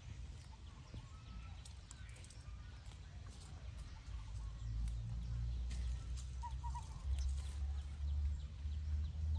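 Low rumble on the microphone that grows louder about four seconds in, with light scattered rustles and clicks of leaves and twigs as a baby monkey climbs a sapling. Three short faint chirps sound about six seconds in.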